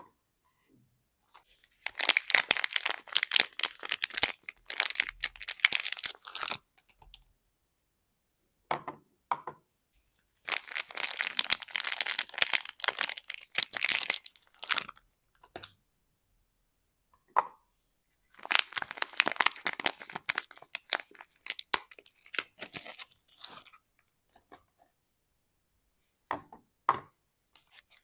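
Soap bar wrappers being torn open and crinkled by hand, in three separate bouts of crackling with quiet gaps between them and a few small clicks in the gaps.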